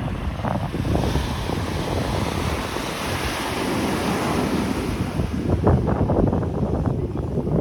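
Ocean surf: a wave breaking and washing in, building to a hiss and fading near the end, with wind rumbling on the microphone.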